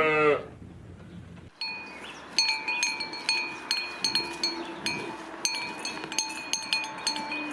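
Small metal chimes tinkling in light, irregular strikes, a couple a second, starting about one and a half seconds in. At the very start a bleat fades out.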